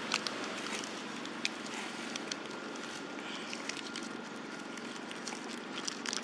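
Scattered light crackles of a paper wrapper handled by a young macaque, with dry leaf litter rustling, over a steady outdoor hiss.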